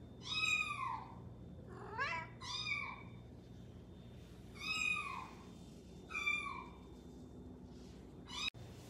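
Cat meows played back from a recording of cat sounds: about six arching meows, a second or two apart, all alike in shape, with a sudden cut near the end.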